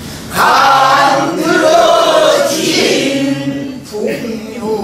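A woman singing a line of a pansori danga in long held notes that waver in pitch. A few strokes on a buk barrel drum accompany her.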